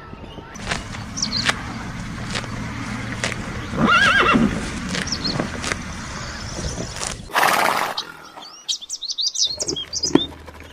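A horse whinnies once with a wavering pitch about four seconds in, over a noisy background with scattered knocks; later a short loud rush of noise and a few small high chirps.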